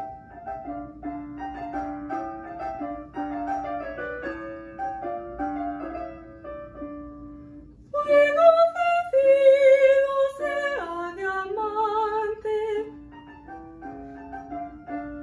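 Keyboard accompaniment to a Baroque Spanish aria playing on its own. About eight seconds in, a woman's classical voice enters and sings a loud phrase with vibrato for about five seconds, then the keyboard carries on alone.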